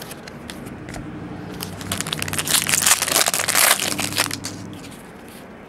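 Foil wrapper of a trading-card pack crinkling and tearing as it is pulled open by hand. The crackle is loudest from about two seconds in to about four seconds.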